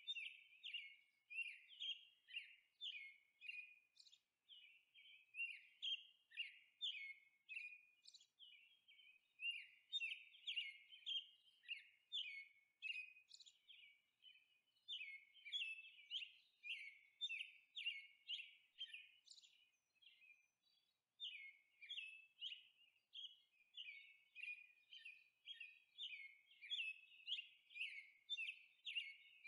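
Birds chirping faintly, a fast run of short high notes that keeps going, broken by brief pauses every few seconds.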